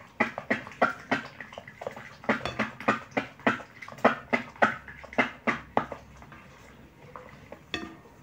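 A spoon knocking and scraping against the sides of a glass bowl while stirring glycerin soap into hot water to dissolve it. There are about three knocks a second with a little sloshing; they stop about six seconds in, and one more knock comes near the end.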